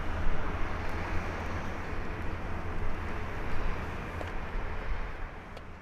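Rolls-Royce Trent XWB engines of an Airbus A350-1000 on its landing roll-out: a deep, steady jet rumble that grows fainter and fades away near the end.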